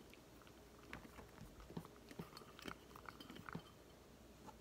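A cat eating from a stainless steel bowl, chewing and biting: faint, irregular small clicks and crunches.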